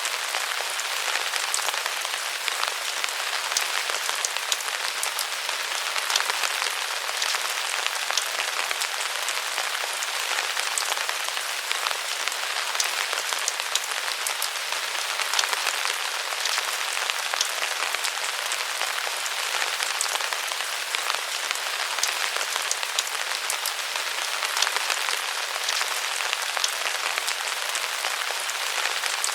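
Steady rain falling under the eaves: a continuous hiss of rainfall with many small, sharp drop ticks.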